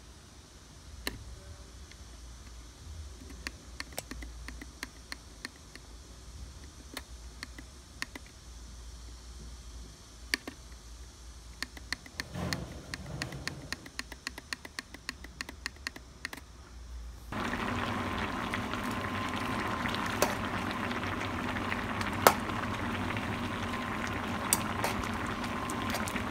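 Clicks of buttons being pressed on a wall-mounted boiler room controller. About two-thirds of the way in, this gives way to a pot of water at a rolling boil, bubbling steadily, while metal tongs stir it and knock against the pot a few times.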